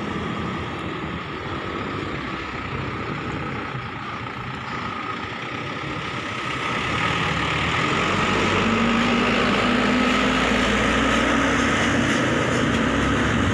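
Light truck loaded with sugarcane driving over a railway level crossing, its engine and tyres getting louder as it passes close by, about halfway through. Other cars crossing add steady traffic noise.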